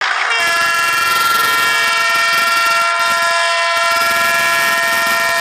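Train horn held in one long, steady blast at a single pitch.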